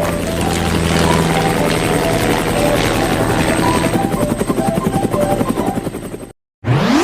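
Cartoon helicopter sound effect: rotor blades chopping steadily over light background music. It cuts off suddenly about six seconds in, followed by a quick rising swoosh.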